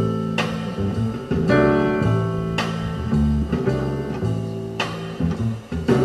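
A soul song playing in an instrumental stretch without singing: guitar over a moving bass line, with struck accents every couple of seconds.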